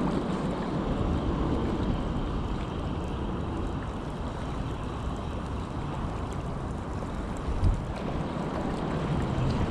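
Strong wind buffeting the microphone in a low rumble, over small choppy waves splashing against the lake bank, with a single short bump about three-quarters of the way through.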